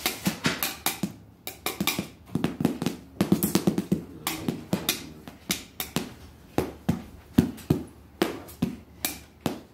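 A child drumming with a pair of sticks on makeshift drums of cushions and a plastic tile: sharp, irregular taps and clicks, about three or four a second.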